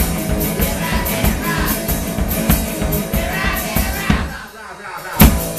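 One-man band playing fast rock and roll live: electric guitar, kick drum and cymbal on a driving beat, with singing. The song breaks off about four seconds in and ends on one loud final hit.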